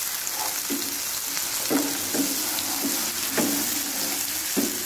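Sliced onions, green chillies and ginger-garlic paste sizzling in oil in a nonstick pan. A wooden spatula stirs them, scraping across the pan about once a second.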